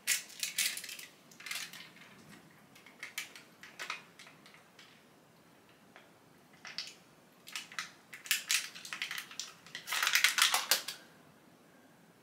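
Clothes hangers and garments being handled in a wardrobe: clicks and rattles of hangers against the rail and each other, coming in short bursts with pauses between.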